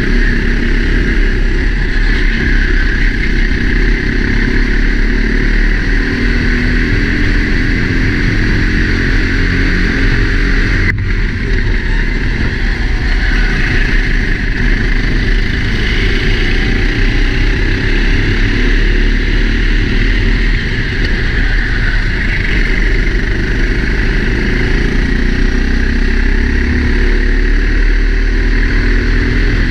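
Four-stroke Sodi race kart engine running hard at racing speed, its pitch rising and falling, heard from a helmet camera under a steady rush of wind noise.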